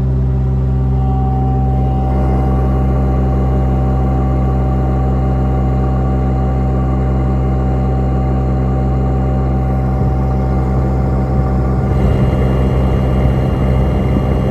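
Miller EnPak engine-driven air compressor, hydraulic pump and generator unit running at a steady speed: a constant engine drone with a faint whine over it. From about ten seconds in it grows a little louder and rougher.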